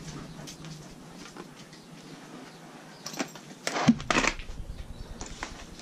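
Faint steady low hum with scattered small clicks and light knocks of handling, the loudest cluster about three to four seconds in.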